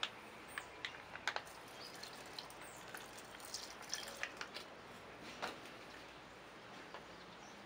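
Vinegar poured in a thin stream from a plastic sachet into a small stainless steel pot, trickling and dripping onto the ingredients. A few light clicks from handling are scattered through it.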